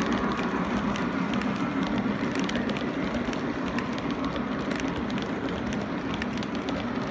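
Lionel O-gauge model passenger cars rolling past on metal track: a steady rumble of wheels with many light, irregular clicks, growing slightly fainter.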